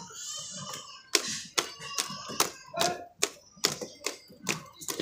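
A hand beating and slapping a thin flour-and-arrowroot batter in a plastic tub: sharp wet slaps about twice a second, starting about a second in.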